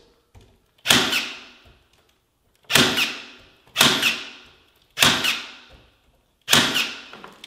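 Corded electric staple gun firing staples through a carpet tile into the underside of a wooden stair tread: five sharp, loud clacks, one to two seconds apart.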